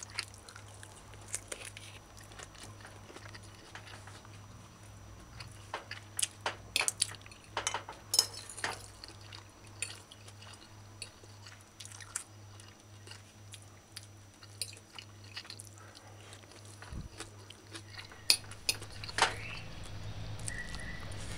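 A person eating chicken chop suey with rice: chewing, with scattered short clicks and scrapes of a metal fork on a ceramic plate. A low steady hum runs underneath.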